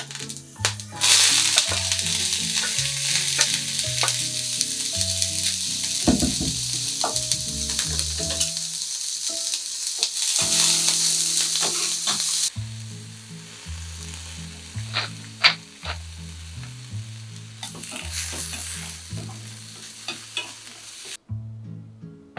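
Julienned green pepper and carrot sizzling in sesame oil in a hot frying pan as they are stir-fried with cooking chopsticks. The sizzle starts loud about a second in as the vegetables hit the oil, eases off about halfway through with a few sharp clicks, swells briefly, and cuts off shortly before the end. Soft background music with a slow bass line plays underneath.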